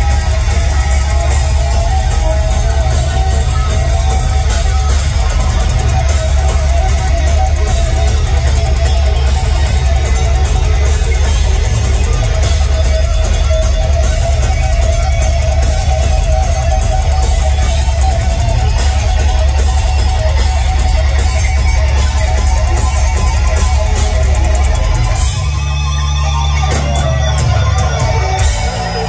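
Heavy metal band playing live, loud and dense: electric guitars over bass and drums, heard from inside the crowd. About 25 seconds in the playing changes, with a brief dip in level.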